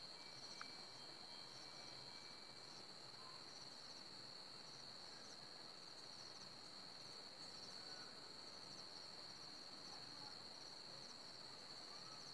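Near silence with faint crickets chirping in the background: a steady thin high trill with small repeated chirps above it.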